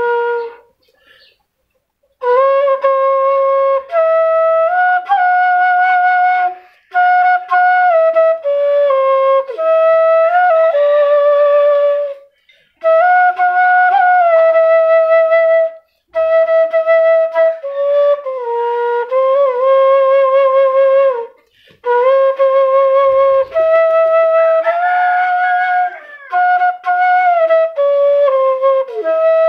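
Bamboo flute (seruling) played by a small boy: a slow, plaintive melody of long held notes, several with a wavering vibrato, broken every few seconds by short pauses for breath.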